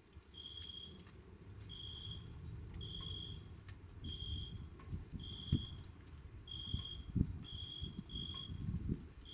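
Short, high-pitched chirps, each about half a second long and repeating roughly once a second, as from a night insect, over a low rumble with a few stronger low surges that fit distant thunder.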